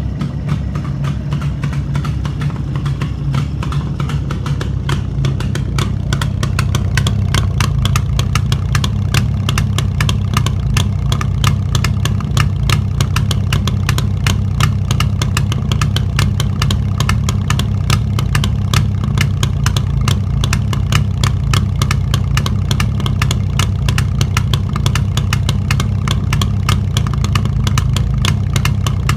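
Jawa 350 motorcycle's two-stroke twin-cylinder engine, freshly rebuilt after a major overhaul, running steadily with an even beat. It gets a little louder about six seconds in, then holds steady.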